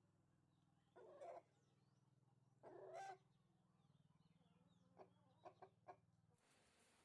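Aseel chickens clucking: two short calls about a second and three seconds in, then a few faint clicks, over a steady low hum.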